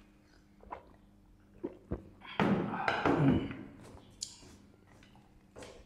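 Two drinking glasses set down on a table with two dull thunks about a second and a half in, followed by a short breathy voice sound.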